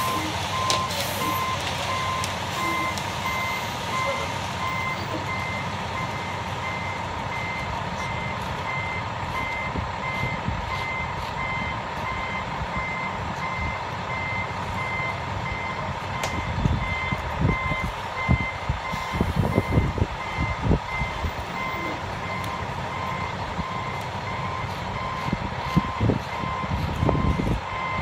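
Concrete mixer truck's backup alarm beeping in an even, repeated pulse over the truck's running engine. Irregular low rumbles and thumps come in about the middle and again near the end.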